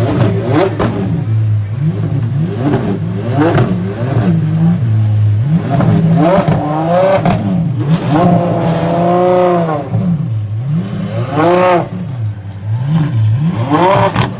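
An Apollo Intensa Emozione's naturally aspirated V12 is being revved repeatedly in a string of quick blips, the pitch climbing and falling each time. There are a few longer held revs in the middle.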